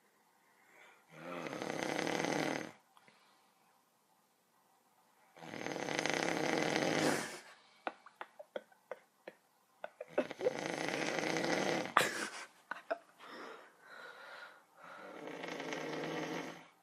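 A sleeping person snoring, four long rasping snores about four to five seconds apart. A few short clicks come between the second and third snores.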